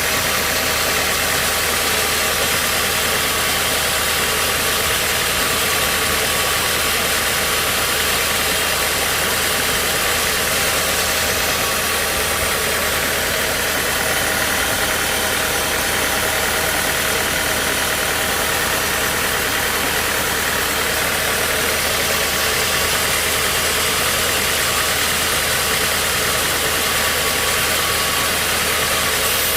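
Engine-driven sawmill machinery running steadily, a constant mechanical noise that neither breaks nor changes.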